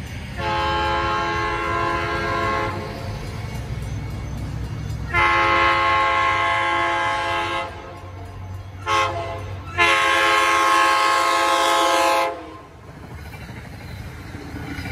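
Commuter train horn sounding the grade-crossing signal: long, long, short, long, each blast a chord of several notes. The train's low rumble runs underneath and grows as the train reaches the crossing near the end.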